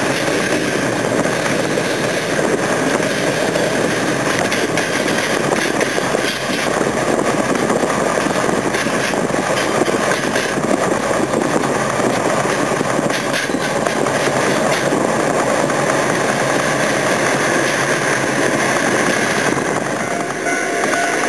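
Steady rushing road and wind noise of a moving car, mixed with the rumble of a slow freight train of tank wagons and container flat wagons rolling alongside; the noise thins briefly near the end as the train falls out of view.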